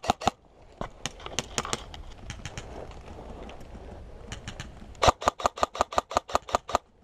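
Airsoft gun firing in rapid bursts of sharp shots, about seven a second: one burst ends just after the start, a few single shots follow, and a burst of about a dozen shots comes near the end.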